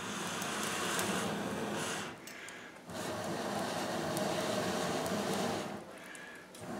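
Air blown by mouth through a collapsible steel pocket bellows tube onto glowing fireplace coals, to feed them oxygen and get a log to catch. It comes as two long, steady rushes of about two and three seconds, with a short pause for breath between them, and a third blow starting at the end.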